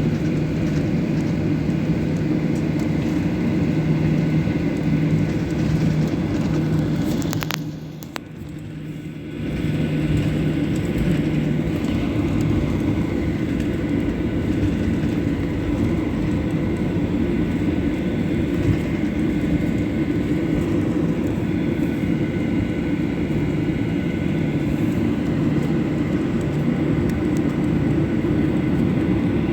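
Steady rumble and hum of a Boeing 737 airliner's jet engines heard inside the cabin while the plane taxis before takeoff. The level drops briefly about eight seconds in, then returns.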